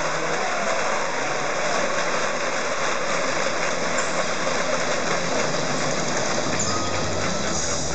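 Steady din of a large arena crowd, many voices blending into one even noise.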